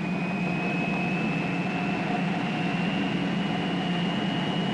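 Jet engine running with a steady rumble and a thin high whine that climbs slowly in pitch.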